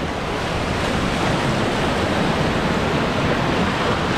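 White water of a river rapids ride rushing and churning through its channel, a steady loud rushing.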